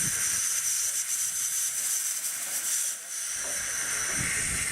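Steady hiss of steam escaping from a small steam locomotive, a half-scale replica of a Darjeeling & Himalayan Class B tank engine. The hiss eases slightly about three seconds in.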